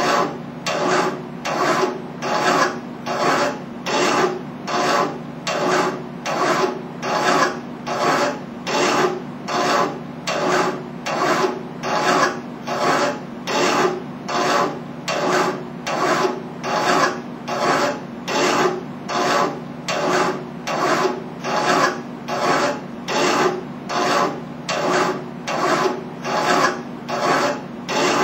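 Hand file rasping back and forth across metal clamped in a bench vise, in a steady rhythm of about one and a half strokes a second.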